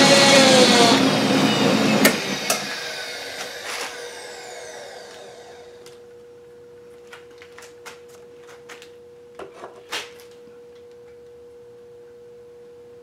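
Milling machine spindle running, then switched off: a click, then a whine that falls in pitch and fades over several seconds as the spindle coasts to a stop. A few light clicks follow over a faint steady hum.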